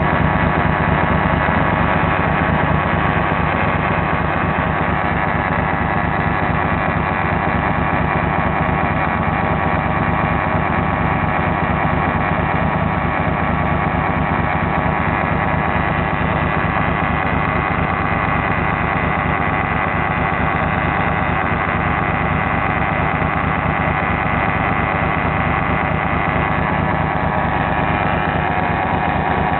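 Engine running steadily at idle just after its valve clearances were adjusted, giving off a noise the owner finds strange.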